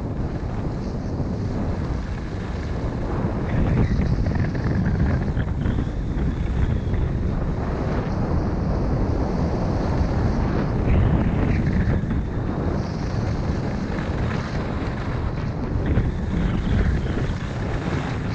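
Wind buffeting the microphone of a ski helmet camera during a downhill run, over the steady hiss of skis sliding on snow.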